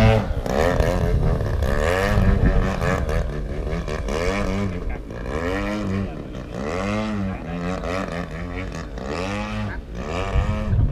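Radio-controlled model airplane's motor buzzing in flight, its pitch rising and falling over and over as the plane swoops and passes.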